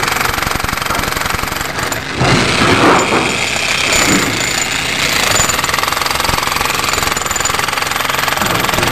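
Handheld jackhammer hammering steadily and rapidly into very hard concrete around steel rebar, chipping away a concrete post. It gets a little louder for a moment about two seconds in.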